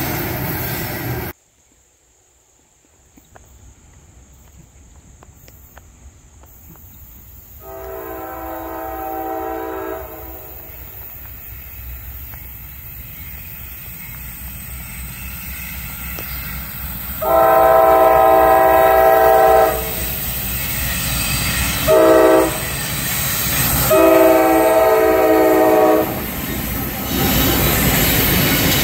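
CSX freight locomotive horn blowing the grade-crossing signal: two long blasts, a short one, and a long one, while the train's rumble grows until it passes near the end. At the very start the rumble of freight cars going by cuts off abruptly about a second in.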